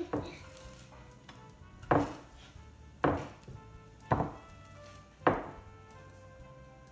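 Hands pressing sticky Rice Krispie and marshmallow mixture into a ceramic baking dish, the dish knocking on a wooden table about five times, roughly a second apart.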